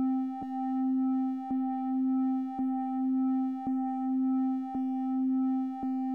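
Synthesized electronic tone with a few overtones, pulsing once a second with a short click on each beat: a steady 1 Hz audio pattern.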